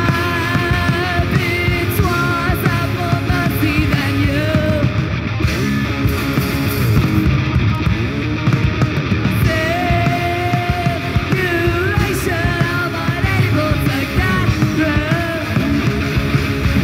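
Live rock band playing: distorted electric guitars, bass and drums, with a melodic line bending up and down over a fast, steady beat.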